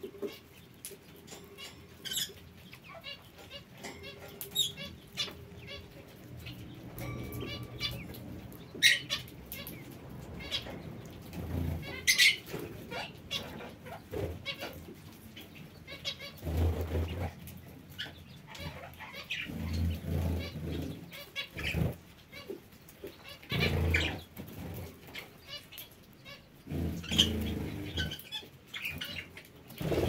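Aviary birds calling: parakeets give many short, sharp chirps and squawks, scattered irregularly. Every few seconds a lower sound about a second long breaks in.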